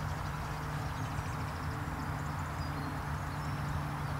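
Quiet open-air background: a steady low hum with a few short bird chirps over it.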